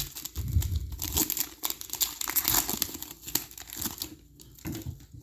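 Foil trading-card pack wrapper crinkling and tearing in the hands: dense, irregular crackles that die away about four seconds in.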